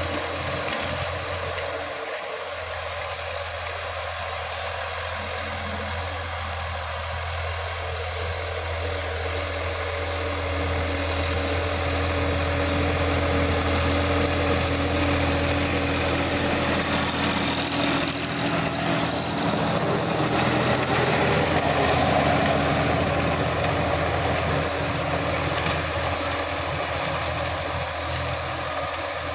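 Sonalika DI-50 RX tractor's diesel engine running steadily while it pulls a rotary tiller through the soil. It is louder in the middle as the tractor passes close, then eases off again.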